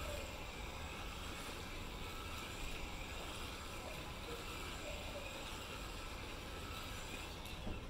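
Tamiya TT02 electric RC car driving on asphalt: a faint electric motor and drivetrain whine that rises and falls with the throttle, over tyre noise and a low steady rumble.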